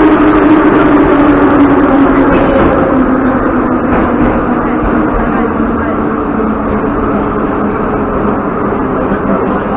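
Ezh3 metro car running along the line, heard from inside the car: steady wheel and track noise under a traction-motor whine that drops in pitch over the first few seconds and then holds, as the train eases off speed.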